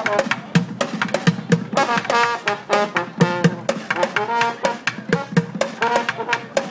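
Group street drumming: a fast, steady beat of many drum strikes, with held and sliding pitched notes of a melody over it.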